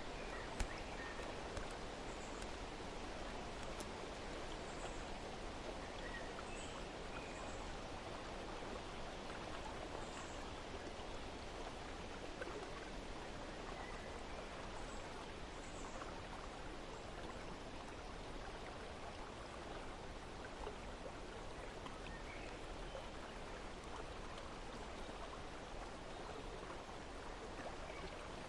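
Steady rush of flowing water, with a few faint, short bird chirps scattered through it. There is a single sharp click about half a second in.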